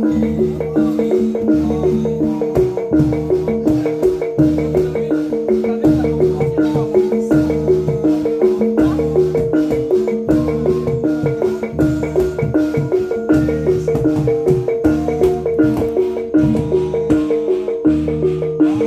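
Live gamelan ensemble playing jatilan dance music: a fast, repeating figure on metal mallet instruments over low booming strokes about every second and a half, with sharp clicking beats throughout.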